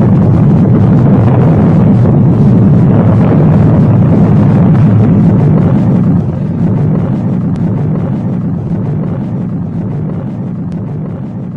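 Atomic bomb explosion sound effect: a deep rumble after the blast, loud and steady for about six seconds and then slowly dying away, with a few faint crackles near the end.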